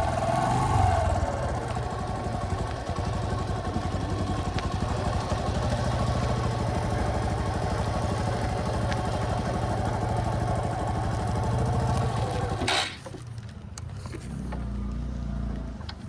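A vehicle engine running, its revs dropping just after the start, then idling with a steady rapid beat until it is switched off suddenly about thirteen seconds in, leaving quieter background.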